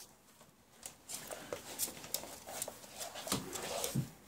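French bulldog puppy rummaging among bags on a wooden floor: scratchy rustling and clicks from its paws and nose against the bags, with two dull knocks near the end.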